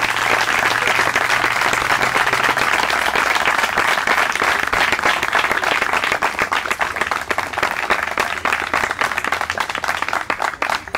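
A small crowd applauding with steady hand-clapping, thinning out near the end.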